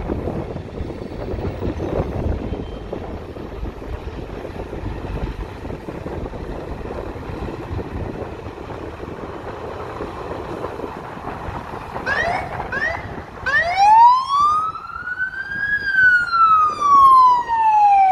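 Fire engine siren coming on about twelve seconds in with a few short rising chirps, then going into a slow wail that rises, falls and starts rising again. Before it there is only the steady rumble of street traffic.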